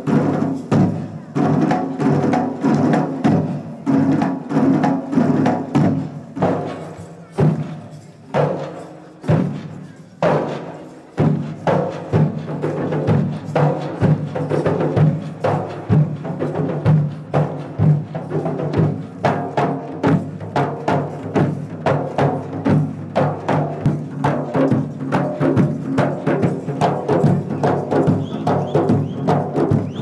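Live band playing an instrumental passage: drums strike a beat under sustained melody notes. About eleven seconds in, the beat turns faster and denser.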